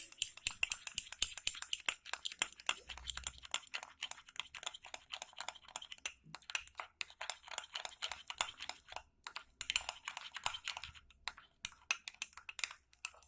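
A spoon stirring herbal ash powder into honey, clicking rapidly against a small bowl, with a few brief pauses.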